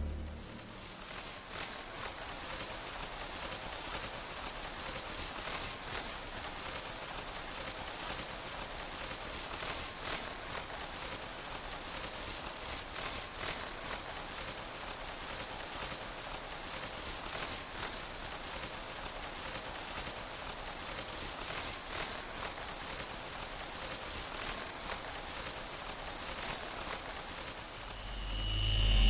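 Synthesized sci-fi force field sound effect: a steady electric hiss with light crackle and faint thin high tones above it.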